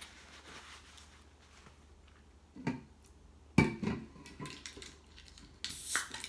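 A tall AriZona drink can is set down on the table with a sharp knock, then its tab is pulled open near the end with a short hiss.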